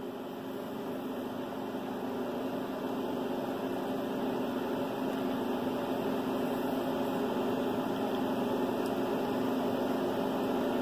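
Steady low hum with an even hiss: room background noise, with no distinct event.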